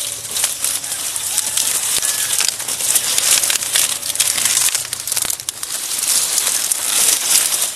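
Stiff, spiky pineapple leaves rustling and scraping against people and a woven sack as they push through the rows: a continuous crackling rustle with many small snaps.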